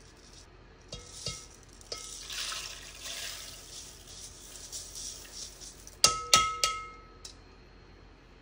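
Washed, drained rice sliding out of a stainless-steel mesh strainer into a rice cooker's inner pot, a rustling hiss with small ticks. About six seconds in come three sharp, ringing metal clanks in quick succession, the strainer knocking against the pot.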